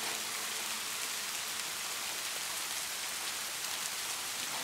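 Steady rain falling, an even hiss with no rhythm or tone to it.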